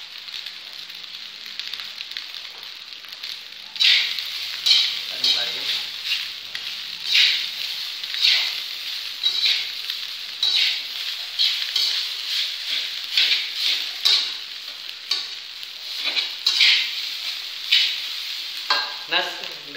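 Fried rice sizzling in a metal frying pan while a metal spatula stirs and scrapes through it. From about four seconds in, the spatula scrapes against the pan in strokes roughly once a second over the steady frying hiss.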